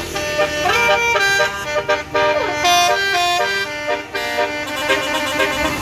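Basuri 'telolet' bus horn, a multi-tone air horn, playing a tune of held notes that step from pitch to pitch, with a few short slides between them.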